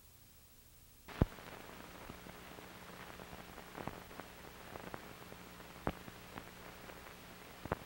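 Optical film soundtrack running over the countdown leader: a sharp click about a second in, then a faint steady hiss and low hum dotted with scattered pops and crackles.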